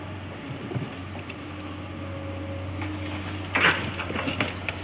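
Hydraulic excavator's diesel engine running steadily, with footsteps scraping and crunching on loose stony soil as someone climbs a steep slope, one louder scuff about three and a half seconds in.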